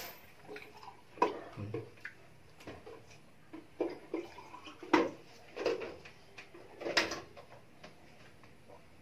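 Water poured from a plastic pitcher into a drinking glass, then a scatter of short gulps and glass knocks as water is drunk from glasses.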